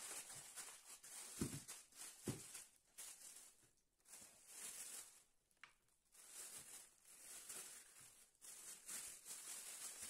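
Faint, on-and-off crinkling of a thin plastic bag handled as raw meat is packed into it, with two soft thumps about a second and a half and two seconds in.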